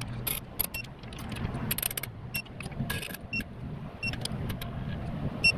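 Snap-on digital torque wrench being worked on the bolts of an EJ25 engine block's case halves: its ratchet head clicking in short runs, with brief high electronic beeps from the wrench as the bolts come up to torque. A low steady hum sits underneath.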